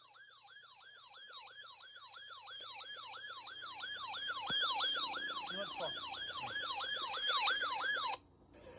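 Electronic siren in a fast yelp pattern, sweeping down and up about three and a half times a second, growing steadily louder and then cutting off suddenly near the end.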